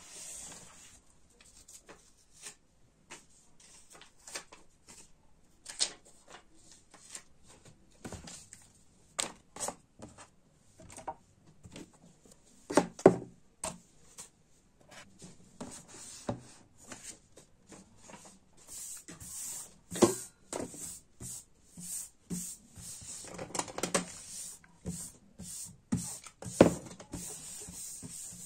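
Small items being picked up and set down on a desk, with scattered light knocks and taps, and a cloth rubbing across the desktop, mostly in the second half.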